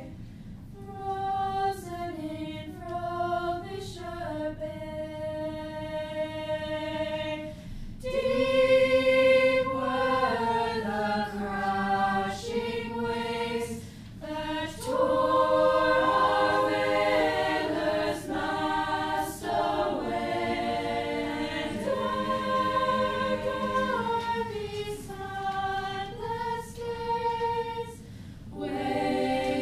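Choir singing held chords in several voice parts, laid over the footage as soundtrack music.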